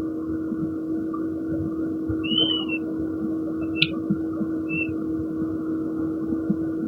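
Steady machine hum with a constant low tone over a low rumble. A few short high chirps come about two seconds in and near five seconds, with a single sharp click between them.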